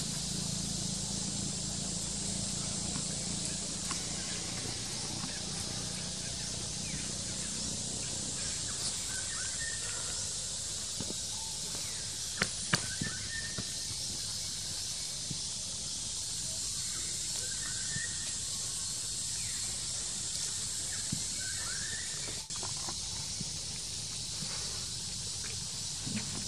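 Outdoor woodland ambience: a steady high hiss with a low hum beneath. A few faint short chirps come and go, and two sharp clicks sound about twelve seconds in.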